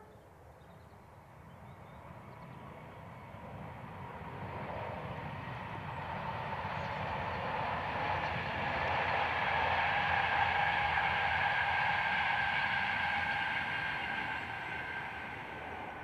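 Class 91 electric locomotive hauling InterCity 225 Mk IV coaches passing by. It grows louder to a peak about two-thirds of the way through, then fades, with a steady high whine over the rumble of wheels on rail.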